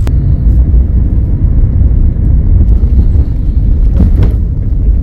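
Steady low rumble of a car's engine and tyres heard inside the moving car's cabin.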